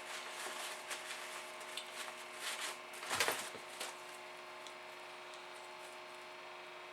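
Soft rubbing and handling noises of hands working with materials at a workbench, with one louder scuff about three seconds in, then only a faint steady hum.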